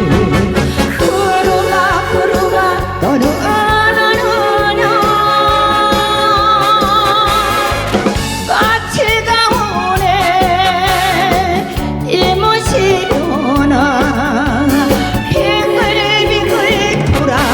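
Korean pop song: a sung or lead melody with wavering vibrato over steady band accompaniment.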